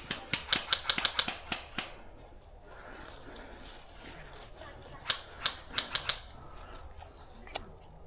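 Airsoft guns firing rapid shots, about five or six sharp cracks a second for the first two seconds, then a second shorter string of shots about five seconds in.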